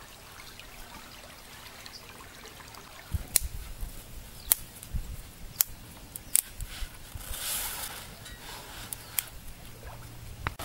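Dry twigs snapped by hand, a series of sharp cracks roughly once a second from about three seconds in. Before that, faint water trickling.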